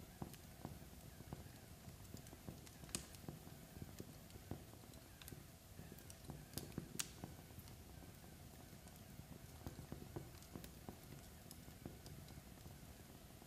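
Log fire in a fireplace crackling softly: irregular small pops and snaps over a low steady rumble. A couple of sharper pops come about three and seven seconds in.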